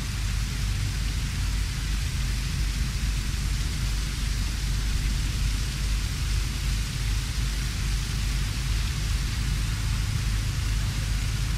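Steady wind noise on the camcorder microphone: an uneven low rumble under a constant hiss.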